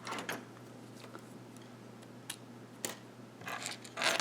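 Light metal clicks and scrapes of a pin-tumbler lock being taken apart by hand, a shim drawn out and the pin chambers opened; a handful of separate clicks, the loudest near the end.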